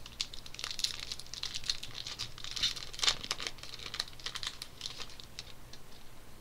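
Crinkling and crackling of a foil trading-card pack wrapper being handled and opened: a dense run of small crackles, loudest about three seconds in, that thins out near the end.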